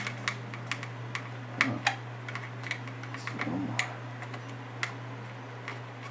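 Irregular small metallic clicks and ticks as a screwdriver works a screw loose while hemostats hold its nut inside a metal electronics chassis, over a steady low hum.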